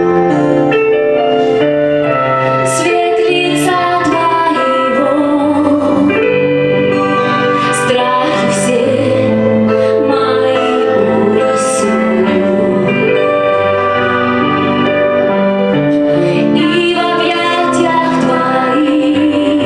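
Sung worship song: a female voice singing held notes over instrumental backing.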